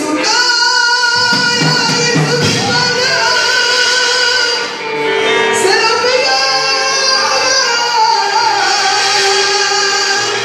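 Singing with musical accompaniment, a voice carried over a microphone and loudspeaker.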